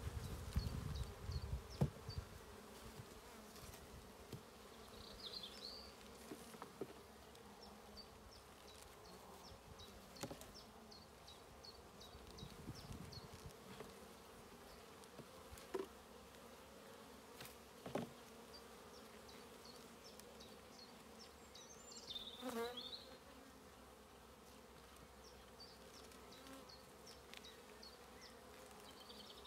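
Honeybee colony humming steadily from an open hive. Near the start come a few low puffs from the beekeeper's smoker, and later a few sharp knocks as wooden frames are handled.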